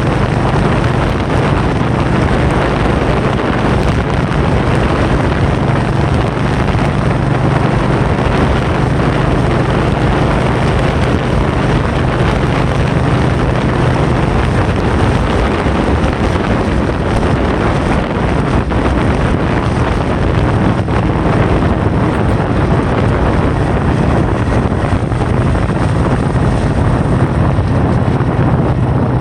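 Loud, steady wind noise with a constant low drone beneath it.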